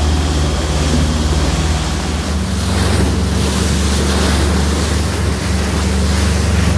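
Motor fishing boat running at speed through a choppy sea: a steady engine drone under the rushing wash of the wake and spray, with wind buffeting the microphone. The rush of water and spray grows louder about two and a half seconds in.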